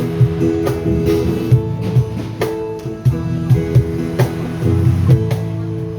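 Live band music: strummed guitar chords over a drum kit keeping a steady beat, with kick drum thuds and sharp snare or cymbal hits.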